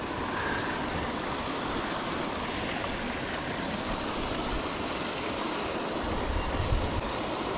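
Steady rushing, splashing water from a paddlewheel aerator churning the fish pond.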